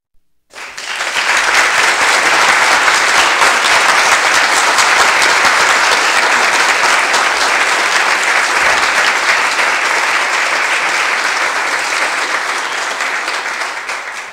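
Crowd applauding steadily. It starts suddenly after a brief silence and eases slightly near the end.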